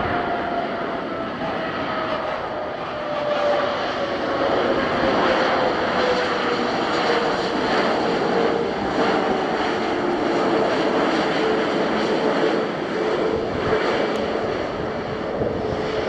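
Airbus A320neo jet engines running as the airliner rolls out along the runway after landing. Under the steady engine noise is a whine that falls slowly in pitch as the engines wind down.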